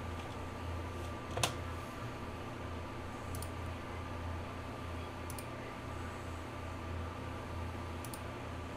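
A few faint computer mouse clicks as checkboxes are ticked, with one sharper click about a second and a half in, over a steady low hum and a faint steady whine.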